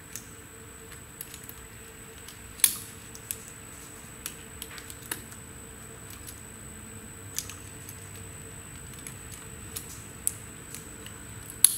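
Scattered small clicks and taps of metal parts being handled as a snap ring is fitted back onto the valve seat puller head's housing, the sharpest about two and a half seconds in.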